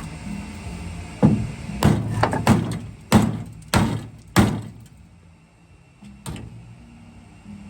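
A string of heavy metallic bangs on an old car body, about seven uneven hits over three seconds, then one more a couple of seconds later.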